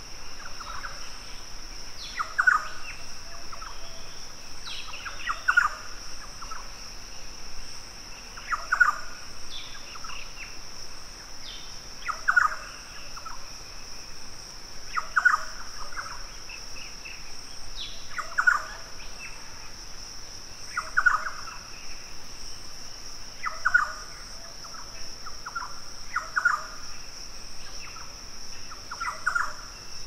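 A bird calls a short phrase of notes about every three seconds. A steady high-pitched insect drone, like crickets, runs underneath.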